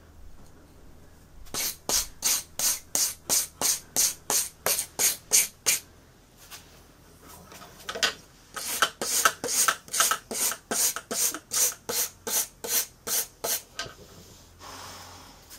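A hand file scraping across knife-blade steel in a file jig, grinding the edge bevel, with quick even strokes at about three a second. There are two runs of strokes with a short pause between them.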